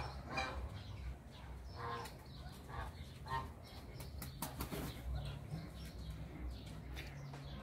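Quiet aviary background: scattered soft bird calls with a few brief clicks and rustles.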